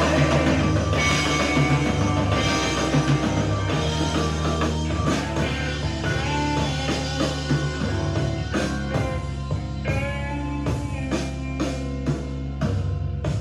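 Rock music with electric guitar and drum kit, playing from a vinyl record through a vintage Akai amplifier and Pioneer CS-757 loudspeakers. In the second half the music thins out into separate, evenly spaced hits.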